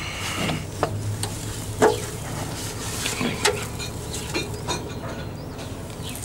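Irregular light clicks and clinks of hand work over a steady hiss and a faint low hum.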